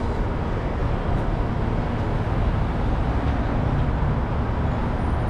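Steady city street traffic noise: cars and buses passing on a busy avenue.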